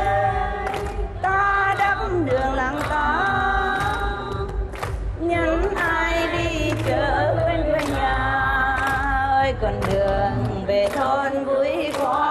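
A woman singing a slow Vietnamese song into a microphone, with long held, wavering notes, over backing music with a steady low beat.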